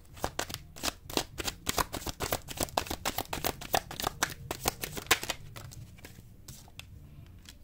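A deck of tarot cards being shuffled: a fast run of crisp card clicks for about five seconds, then a few scattered taps as the shuffling stops.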